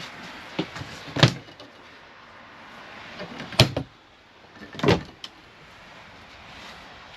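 Travel trailer's storage cabinet doors being handled, with three sharp knocks about a second, three and a half and five seconds in as they are opened and shut.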